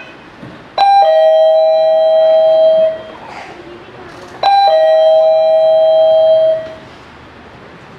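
Two-tone ding-dong doorbell chime, rung twice: a short higher note then a lower note held for about two seconds, the second ring coming about three and a half seconds after the first.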